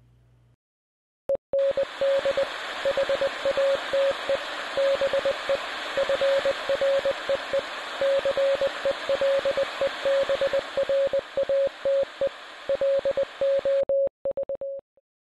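A single beeping tone keyed on and off in short and long pulses, like Morse code, over a hiss of radio static; both cut off suddenly near the end.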